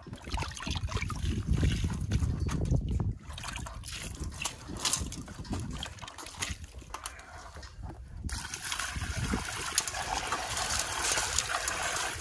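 Water sloshing in a plastic bucket, scooped with a ladle and trickling and splashing back, then poured out in a steady stream onto stonework near the end. A low rumble is loudest during the first few seconds.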